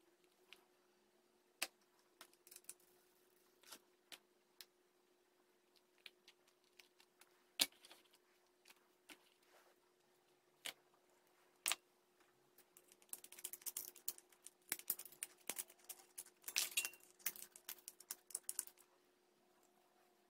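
Scattered light taps and clicks of thin aluminium drink cans being handled on a table, then, about 13 seconds in, several seconds of dense crackling as kitchen scissors cut through the can's thin aluminium.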